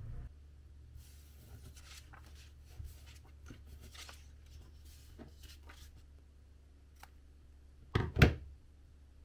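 Cardboard being worked by hand, with scattered light scrapes and clicks, then two sharp knocks in quick succession near the end. A low steady hum runs underneath.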